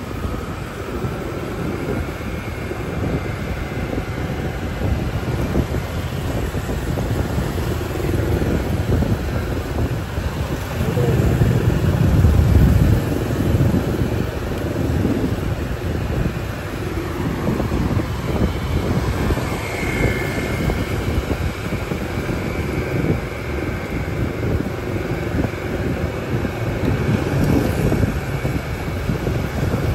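Motorbike riding through city traffic: a steady rumble of engine, road and passing traffic noise with wind on the microphone, swelling louder for a couple of seconds about twelve seconds in.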